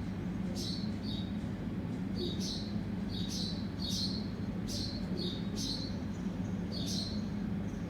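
Baby birds chirping: a string of short, high chirps, irregularly spaced, one or two a second, over a steady low hum.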